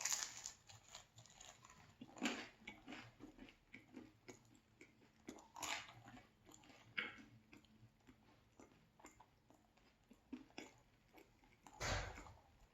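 Close-up chewing and biting of a pizza slice topped with meat, peppers and onions, with soft crunches. Quiet, irregular strokes, with a few louder bites scattered through.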